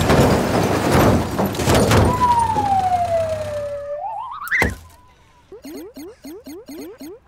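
Cartoon sound effects for a wheel coming off: after a loud noisy stretch, a whistle slides down, wobbles back up and ends in a thump, then a quick run of short rising chirps.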